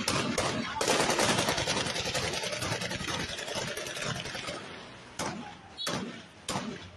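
Gunfire in a street clash. A few shots at first, then rapid shooting runs together for several seconds and fades. Near the end come three single shots, a little over half a second apart.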